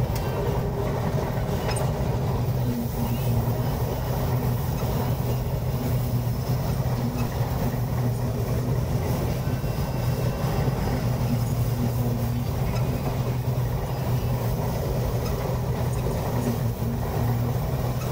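Combine harvester running steadily while cutting standing wheat, heard from inside the cab: a constant low drone of engine and threshing machinery with an even hum.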